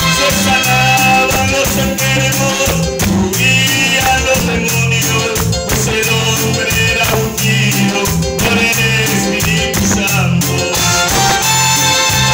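Live Latin-style music on electronic keyboards, with a steady beat, repeating bass notes and a melody line.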